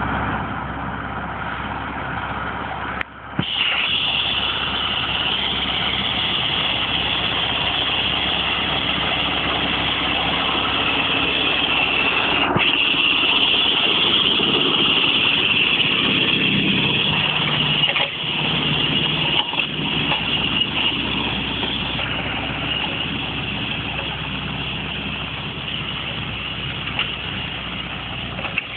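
Landini Blizzard 95 tractor's diesel engine running. It drops out briefly about three seconds in, then comes back louder and keeps running steadily.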